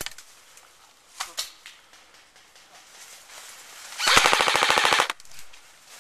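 JG G3 airsoft electric gun (AEG) firing one rapid full-auto burst of about a second, its gearbox cycling in a fast even rattle. Two faint sharp clicks come a little earlier.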